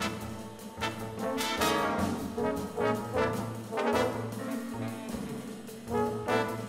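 Jazz big band playing live: the brass section sounds a run of short chords over plucked double bass notes and the drummer's cymbals.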